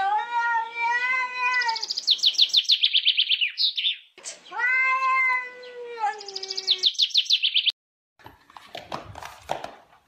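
A cat yowling in two long, drawn-out calls, each followed by a rapid run of high, shrill pulses. It stops abruptly, and a few faint knocks follow near the end.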